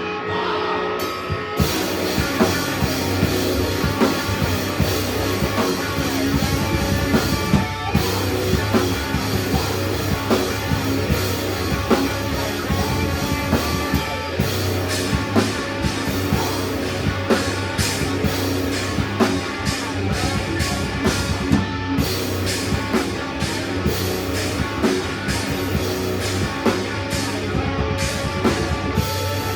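Rock music with a drum kit and guitar, the full band filling in about a second and a half in and continuing with a steady beat.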